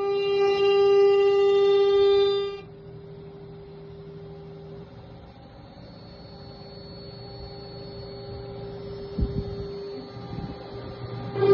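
CNC router spindle whining at a steady high speed, loud for the first two and a half seconds, then much quieter at the same pitch with a faint high whistle above it. A few low knocks come about nine seconds in.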